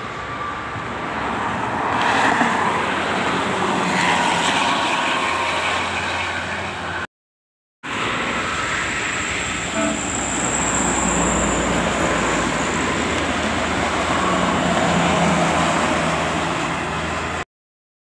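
Buses and a truck passing on a highway, with engine and tyre noise, in two stretches split by a brief silence about seven seconds in.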